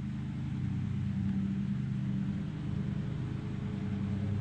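A motor running with a steady low hum that does not change.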